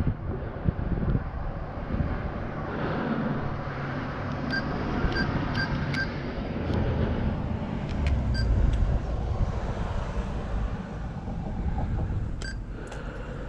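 Steady rumble of passing traffic, with a handful of short electronic beeps from an ATM keypad. Four quick beeps come about halfway through and a few more near the end.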